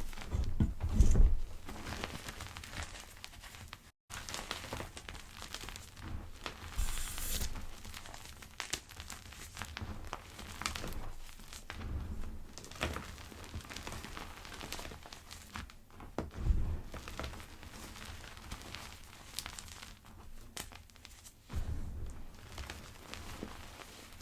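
Gym chalk pebbles being crushed, a run of soft crackles and crunches with occasional dull thumps.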